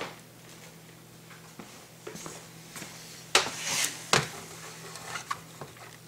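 Handling noise from the camera being repositioned: a couple of sharp knocks, the loudest about three and a half and four seconds in, with a brief rustle between them and a few lighter taps, over a faint steady hum.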